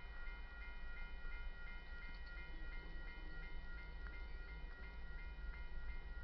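Railroad grade-crossing warning bell ringing steadily in rapid strokes, about four a second, signalling an approaching train as the crossing activates.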